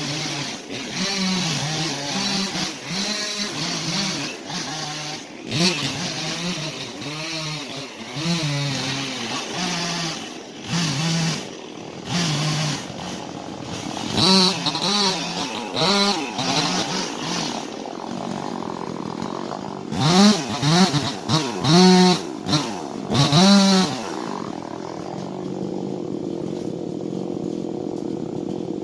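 Two-stroke chainsaw running, its engine speed rising and falling again and again as the throttle is worked, with several quick revs near the end and then a steadier run.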